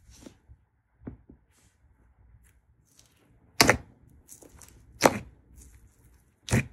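Hands pressing and squishing a thick pink slime with a crumbly layer, handling noises first, then three loud, sharp squishes about a second and a half apart.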